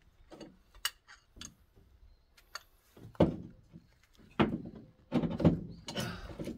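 Irregular metallic clicks and knocks of slip-joint pliers gripping and turning the fitting on a hydraulic oil-drain hose to loosen it, about ten sharp strikes spread unevenly.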